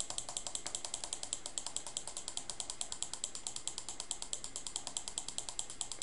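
Computer mouse button clicked rapidly and repeatedly, a fast even train of sharp clicks, several a second.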